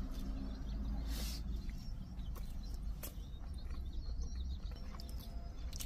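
Faint bird chirps over a steady low rumble, with a few light clicks.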